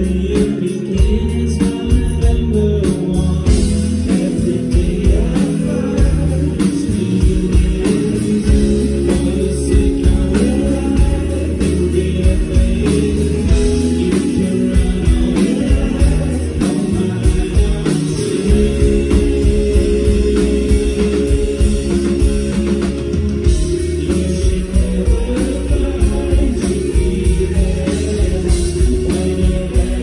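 Live rock band playing: electric guitars and drums with a male lead singer.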